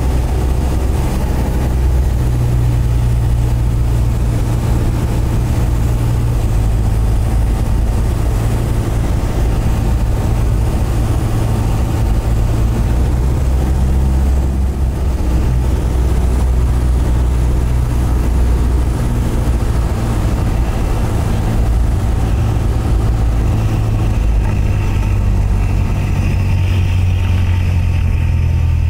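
Cessna 172's piston engine and propeller droning steadily, heard inside the cabin through the final approach, touchdown and landing roll. The low hum shifts a little about halfway through and again near the end.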